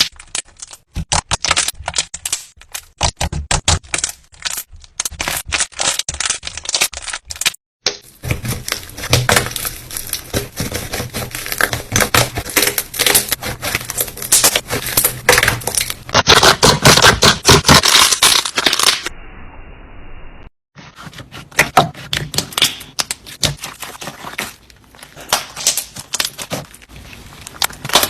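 Slime being squeezed and worked by hand, giving fast, dense runs of crackling clicks and pops. The sound changes abruptly a few times where separate short clips are cut together.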